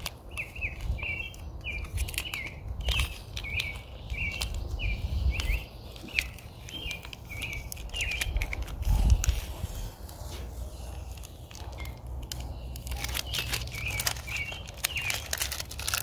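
Masking tape and paper crackling as they are peeled off a freshly spray-painted wheel hub and crumpled in the hand. A small bird chirps repeatedly in the background, in a run through the first six seconds and again near the end.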